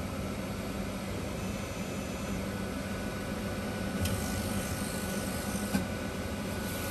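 Hot-meal vending machine humming steadily. A hiss of air starts suddenly about four seconds in and cuts off under two seconds later, with a small click.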